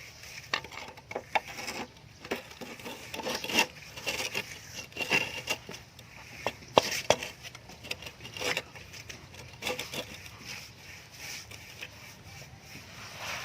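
Irregular taps, clinks and scrapes of hand tools at work, a few strikes louder than the rest.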